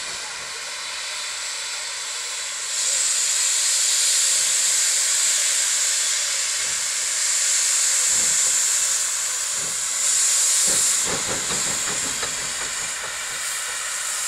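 Steam locomotive hissing steam as it approaches. The steady hiss swells about three seconds in, with a few irregular low beats later on.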